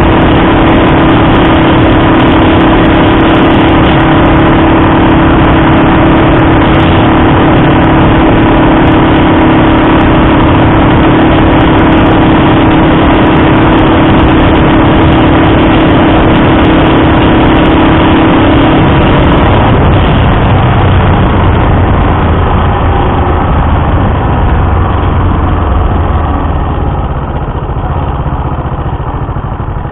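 Honda Dream CL250's parallel-twin four-stroke engine running steadily at cruising speed. About two-thirds of the way through the throttle closes: the engine note drops and the sound grows quieter as the motorcycle slows.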